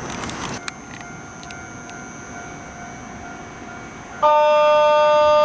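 A railway station departure buzzer sounds about four seconds in: a loud, steady electronic tone of several pitches at once that starts suddenly and holds. Before it there is quiet platform ambience with a few clicks.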